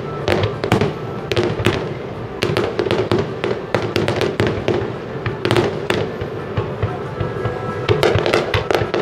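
Aerial firework shells bursting in a rapid finale barrage: a dense, unbroken run of bangs and crackles, several a second, with a cluster of sharper reports near the end.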